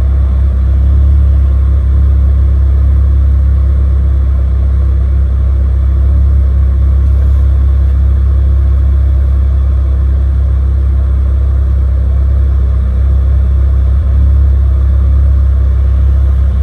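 Chevy Cobalt SS's supercharged 2.0-litre Ecotec LSJ four-cylinder running steadily at a fast idle on its first run after being installed, having sat unused for two years.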